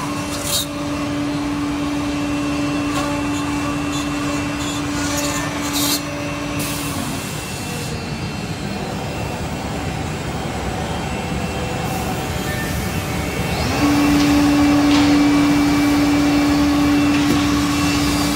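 SM-3725X2 multi-spindle CNC mortising machine running, a steady whine over a hissing, vacuum-like rush from its dust extraction. The whine sags and drops away about seven seconds in, then comes back louder about fourteen seconds in.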